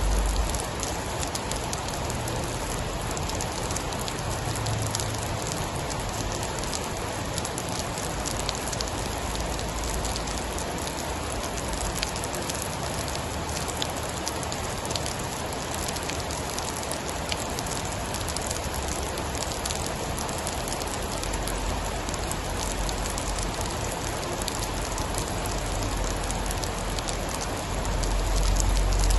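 Steady heavy rain falling, with scattered sharp ticks. A low rumble builds over the last several seconds.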